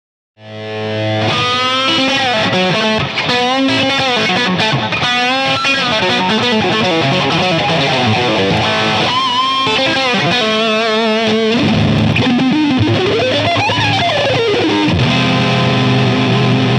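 Ibanez RG430 electric guitar played solo: a chord rings out, then single-note lines with wide vibrato and string bends. Near the end a note glides steadily up in pitch and back down.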